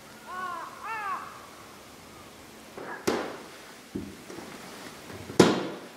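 A crow caws twice in quick succession. Later there are a few sharp knocks and clatters, the loudest one near the end.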